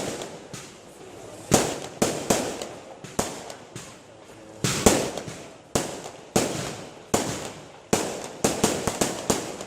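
Aerial fireworks display: about twenty sharp bangs of bursting shells at irregular intervals, each fading in an echoing tail, with a quick run of bangs near the end.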